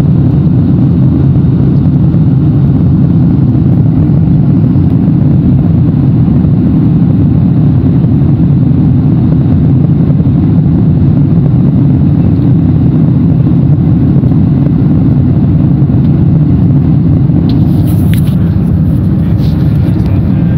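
Steady cabin drone of a jet airliner in flight, from the engines and airflow, heavy in the low end. A few light handling clicks come near the end.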